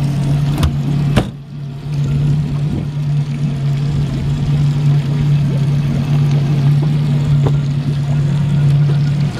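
Yamaha 60 hp four-stroke outboard motor running steadily with an even low hum, running smoothly. Two sharp knocks sound about half a second and a second in.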